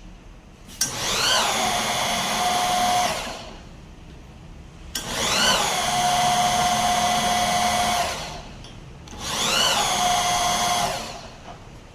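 Alternator test bench running an old Mercedes truck alternator in three short bursts. Each run spins up with a quick rising whine, holds a steady whine for about two seconds, then winds down.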